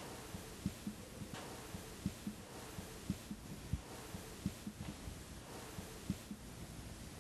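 Heartbeat sound effect: faint low thumps in lub-dub pairs, repeating a little faster than once a second.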